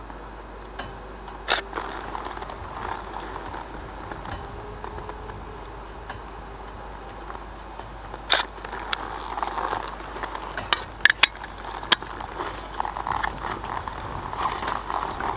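Scattered sharp clicks and knocks over a light steady hiss while a Ural sidecar motorcycle stands with its engine off, just before it is started. There are single clicks about one and a half seconds in and at about eight seconds, then a quick cluster of them in the last third.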